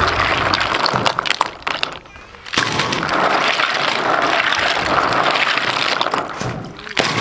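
River snails being washed by hand in a basin of water. The shells clatter and click against each other as they are stirred and rubbed, with water sloshing and splashing. The sound drops briefly about two seconds in, then picks up again.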